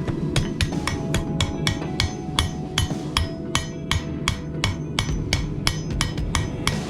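Hand hammer striking steel on an anvil in a fast, even rhythm of about five blows a second, with a ringing tone held between blows: forging a tool from an overhead garage door coil spring.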